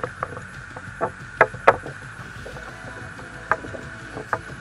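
A few short, sharp clicks and knocks from a mackerel and its tackle being handled in a sit-on-top kayak, over a steady hiss of wind and sea.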